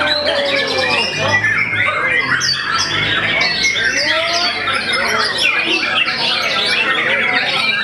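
Several caged white-rumped shamas (murai batu) singing loudly at once in a dense, unbroken chorus of overlapping whistles, rapid chattering phrases and sharp calls.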